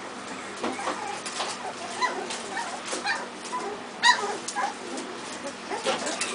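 A litter of two-week-old bullmastiff puppies squeaking and whimpering: a string of short, high cries, the loudest about four seconds in.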